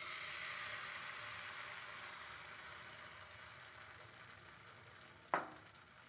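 Thin rice-flour and milk batter sizzling on a hot, oil-brushed nonstick frying pan. The sizzle fades steadily as the thin crepe sets. A single short knock about five seconds in.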